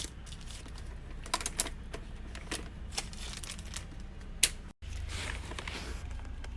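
Small magnetic hematite stones clicking sharply against each other as they are handled for packing, about five clicks spread irregularly, with soft rustling of packaging later on.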